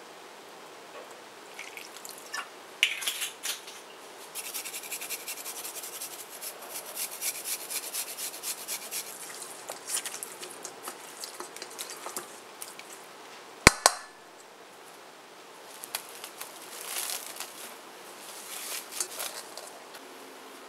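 Raw chicken wings being tossed in a wet marinade with silicone-tipped tongs in a stainless-steel mixing bowl: a dense run of wet squelching and quick clicks. A single sharp click comes about two-thirds of the way in, followed by scattered quieter handling noise.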